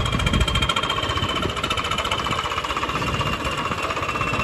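Swaraj 855 FE tractor's three-cylinder diesel engine running at low revs as the tractor moves slowly, with a rapid, even knocking beat. A faint high whine runs alongside and sinks slightly in pitch.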